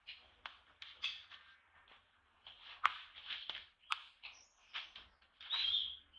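A run of short, high-pitched animal squeaks and chirps, some rising and falling in pitch, with two sharp clicks about three and four seconds in and a longer held squeal near the end.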